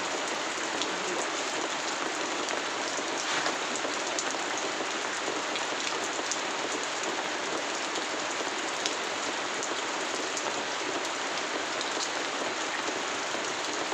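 A steady, even hiss like falling rain, with a few faint ticks scattered through it.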